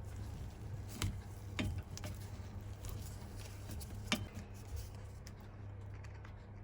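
A few sharp clicks and creaks, about three in all, from a spanner-turned cutter reaming the stripped pedal threads out of a bicycle crank arm, over a steady low hum.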